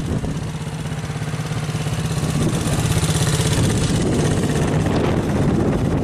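Quad ATV engine idling, a steady low hum that turns into a rougher, noisier sound about three and a half seconds in.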